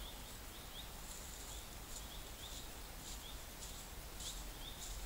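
Faint, high bird calls in short chirps, coming in small clusters every half second or so, over a low steady rumble.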